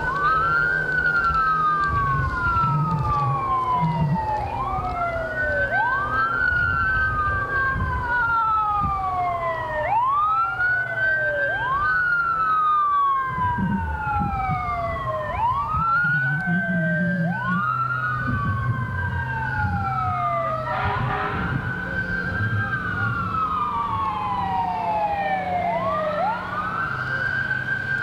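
Fire truck sirens wailing, more than one at once, each rising quickly and then falling slowly, over and over, over the low rumble of engines.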